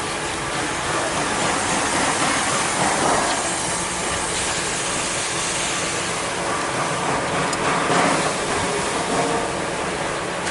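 Combination brake lathe running with a brake drum turning on its arbor: a steady, noisy machine rush that swells louder around two to three seconds in and again about eight seconds in.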